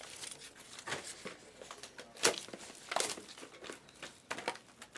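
Plastic wrapping of trading card packs being torn open and crinkled by hand, in a few sharp rustles.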